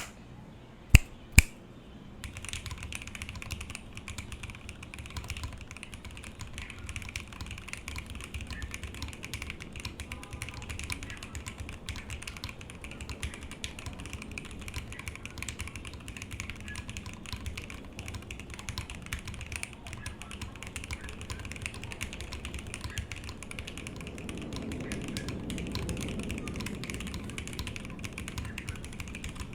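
Fast, continuous typing on a TGR 910 v2 65% mechanical keyboard with lubed and filmed Alpaca linear switches in an o-ring-mounted polycarbonate plate with no foam. About a second in, two sharp, loud clicks come before the typing starts.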